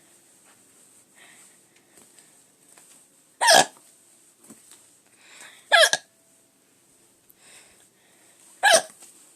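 A person hiccuping three times, each a short, loud, voiced hiccup, about two and a half to three seconds apart.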